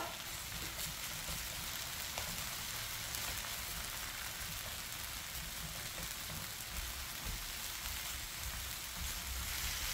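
Spicy marinated webfoot octopus in thick red chili sauce sizzling steadily in a nonstick pan over a gas burner, with a few faint ticks as a wooden spatula stirs it. This is early in the cooking, while the sauce is still thick and before the octopus gives off its liquid.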